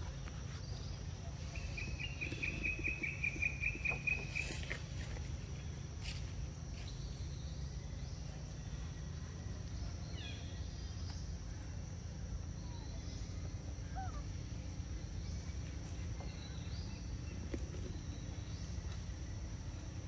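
Forest ambience: a steady high-pitched insect drone, with a bird's rapid, evenly pulsed trill starting about a second and a half in and lasting about three seconds, and a few faint, short bird chirps later on.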